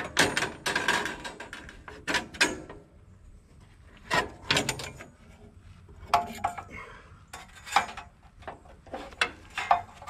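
Steel blade being taken off the wheels of a portable band sawmill by hand: a series of irregular metallic clanks, scrapes and rattles as the band slides past the wheel and blade guard.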